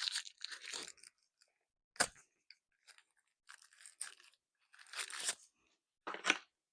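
Packaging being unwrapped and handled: short bursts of crinkling and crunching, with a sharp click about two seconds in.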